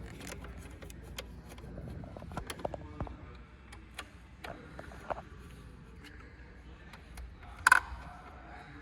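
Scattered small clicks and scrapes of a screwdriver backing out the Phillips head screws of a motorcycle's battery cover, with one sharper clack near the end.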